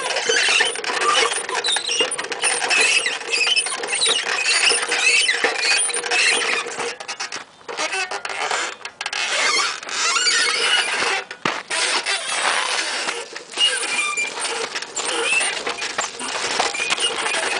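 Rust-covered metal parts squeaking and creaking over and over, a dense run of short, high squeals with a brief break about seven seconds in. The squeaking comes from rust built up over many years.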